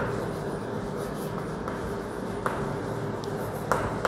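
Chalk writing on a chalkboard: scratching strokes and a few light taps of the chalk as a word is written, over a steady background hum.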